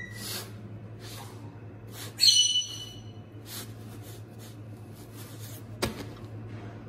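A cloth rustling and rubbing as a puffed naan is pressed down and turned on a dry iron tawa, over a steady low hum. A brief high-pitched tone sounds about two seconds in, and a single sharp click comes near the end.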